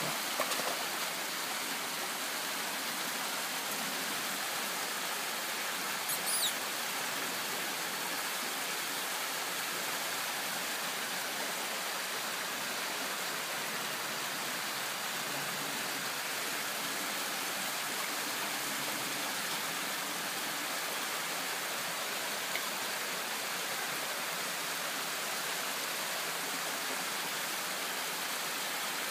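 Shallow forest stream running steadily over rocks. About a second in, a Catahoula leopard dog splashes through the water.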